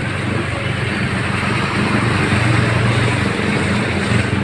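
Heavy rain hissing steadily, with a motor vehicle engine idling underneath as a low steady hum.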